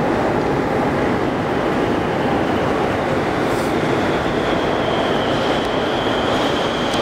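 Metro train arriving at the platform: a steady loud rumble, with a high steady whine coming in about halfway through as it pulls in.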